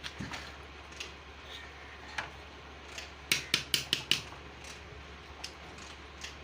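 Metal tools and engine parts being handled: scattered light clicks and knocks, with a quick run of about five sharp metal clinks a little over three seconds in.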